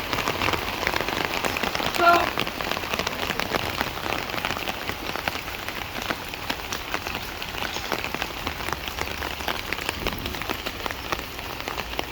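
Steady rain falling, with many individual drops ticking close to the microphone.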